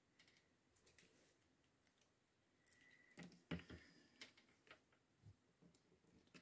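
Faint clicks and rustles of paper and card being handled: a small paper sticker and a glue stick worked onto a card tag and pressed down by hand, the loudest taps a little past the middle.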